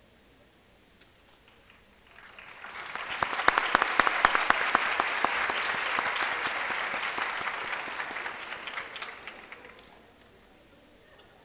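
Audience and panelists applauding: many hands clapping, swelling about two seconds in and dying away near the end.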